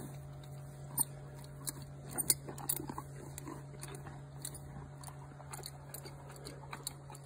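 Horse biting into and chewing a piece of cucumber: irregular crunches, the loudest about one to three seconds in.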